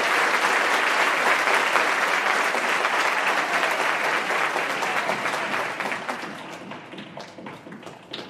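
Theatre audience applauding, the clapping dying away over the last couple of seconds into a few scattered claps.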